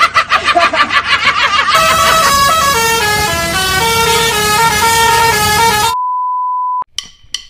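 Telolet basuri bus horn playing a fast stepped melody of clear notes for about four seconds, after a burst of rapid pulsing sound. It cuts off into a single steady beep lasting under a second, followed by a few sharp clicks.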